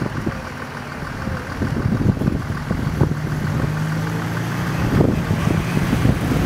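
A motor vehicle's engine running steadily, a low hum that grows louder from about two seconds in, with scattered short knocks.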